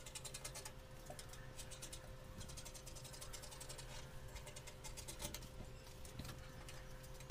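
Scissors cutting through folded fabric laid on a table: a faint, quick run of crisp snips.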